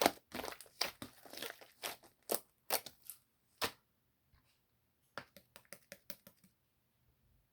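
Toy slime being squished and stretched by hand: a run of crackly, crinkling pops for the first few seconds, then a pause and a string of quieter small clicks.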